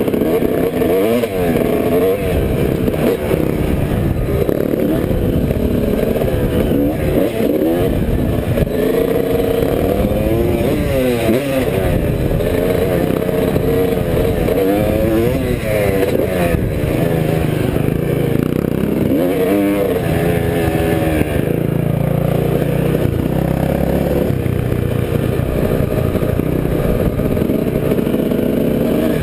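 Off-road vehicle engine revving hard and easing off over and over as it accelerates and slows around a dirt motocross track, with wind rushing on the microphone.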